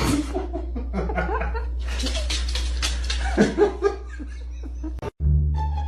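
People laughing and chuckling over a steady low hum; about five seconds in it cuts off abruptly and music begins.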